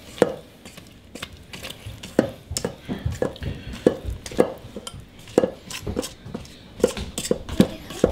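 Spatula stirring thick brownie batter and chocolate chips in a stainless steel mixing bowl: scraping with irregular knocks against the metal bowl, a dozen or so, more than one a second.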